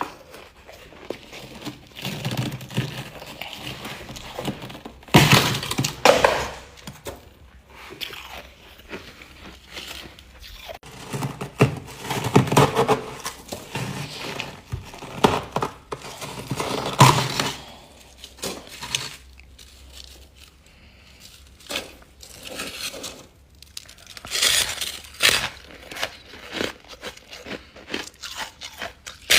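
Freezer frost being bitten and chewed, crunching in irregular bursts with short pauses between them.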